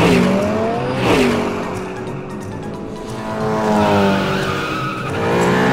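Cartoon race-car sound effects: engines running and slowly revving up, with two quick falling whooshes of cars speeding past about a second apart near the start, over background music.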